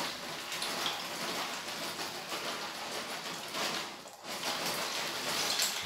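A pot of salted water at the boil as short dried pasta goes in: a steady hissing, pattering noise that dips briefly about four seconds in.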